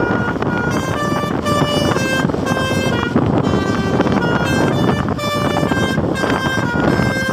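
Bus telolet horn, a multi-note musical air horn, playing a melody of short notes that step from pitch to pitch several times a second, over a steady low noise.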